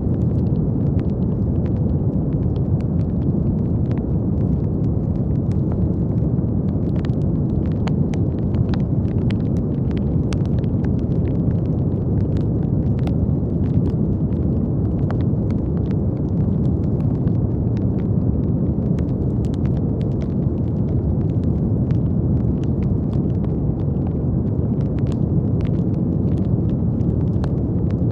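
Steady brown noise, a deep even hiss weighted to the low end, with faint scattered crackling clicks over it.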